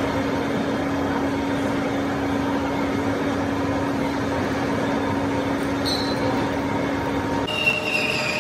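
Heavy lathe running with a large rusty steel shaft blank spinning as a tailstock centre drill cuts into its end face, a steady mechanical hum with cutting noise. Near the end the sound changes to a high, steady squeal of metal cutting.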